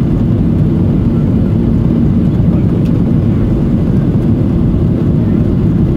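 Steady low cabin noise of a Boeing 737-800 in its climb after take-off: the CFM56-7B engines running at climb power and the rush of air, heard from a window seat over the wing.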